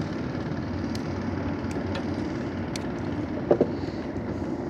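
Small river boat's engine running steadily, a low even rumble, with a few light ticks and one short knock about three and a half seconds in.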